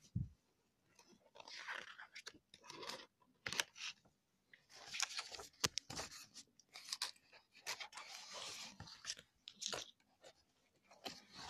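Faint rustling and crinkling of a picture book's paper pages being turned and the book and phone being handled, with scattered sharp taps and clicks.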